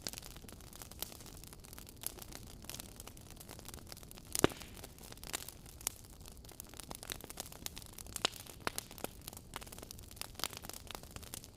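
Fire crackling: irregular snaps and pops over a low hiss, with one louder snap about four and a half seconds in.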